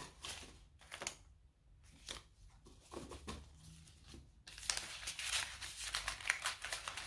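Paper banknotes being handled and counted by hand: rustling and flicking of notes, sparse at first, then a denser run of crinkling from about four and a half seconds in.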